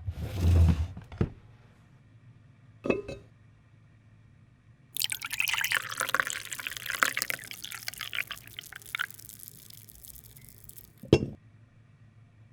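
Liquid being poured into a cup for about four seconds from five seconds in, trailing off, among glassy clinks and knocks: a short clatter at the start, a tap about three seconds in, and a sharp knock near the end as something is set down.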